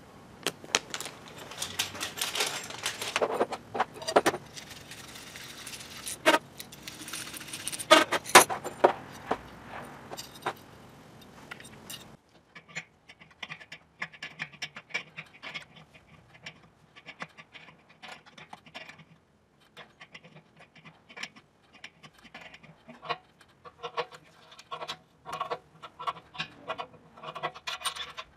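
Crinkling of a plastic packet of small brass compression sleeves, with the loose sleeves jingling inside, for about the first twelve seconds. After an abrupt change, scattered small metallic clicks and taps follow as the copper transfer tube and its brass compression nut are fitted by hand.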